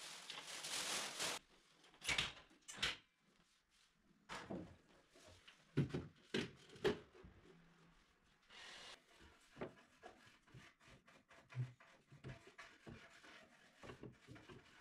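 Plastic wrapping rustles for about the first second and a half. Then come irregular knocks and clatters, the loudest a little past the middle, as a chrome wire pull-out basket and its runner rails are handled and fitted into a kitchen base cabinet.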